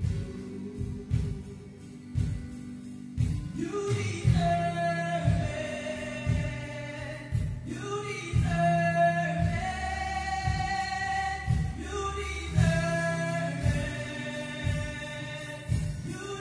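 Gospel music: voices singing held notes over instrumental backing with a steady bass line, the singing coming in fuller about four seconds in.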